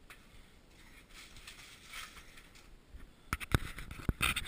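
Rustling of hands and jacket sleeves as a freshly caught northern pike is handled, then a cluster of sharp knocks and slaps in the last second and a half as the fish is set down on the ice.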